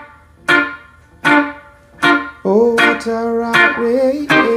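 Electric guitar playing short, choppy reggae offbeat chord stabs in C minor, about one every 0.8 seconds. From about halfway through, a man sings the melody over the chords.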